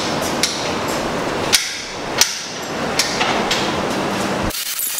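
Tough Tug come-along being cranked by its hand lever, its ratchet clicking sharply every half second or so as it hoists a load of roughly 1,500 pounds. The clicking stops about four and a half seconds in.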